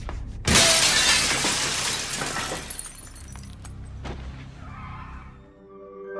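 A large window pane shatters about half a second in as a man crashes through it, followed by glass shards falling and tinkling as the sound fades over the next couple of seconds.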